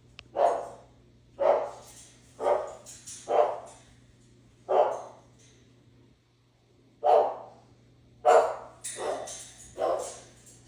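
Parrot mimicking a dog, giving about ten short barks with a pause of a couple of seconds in the middle.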